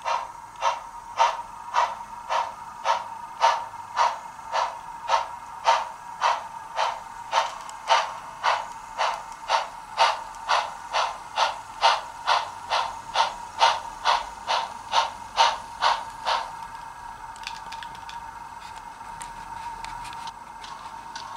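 A Bachmann 2-8-0 model steam locomotive's onboard sound plays steam exhaust chuffs at an even pace of about two a second over a steady high hum. The chuffs stop about 16 seconds in, leaving the hum and a faint hiss.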